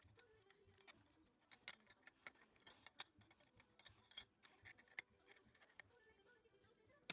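Faint, irregular small clicks and taps of a watchmaker's tools on the parts of a pocket-watch movement.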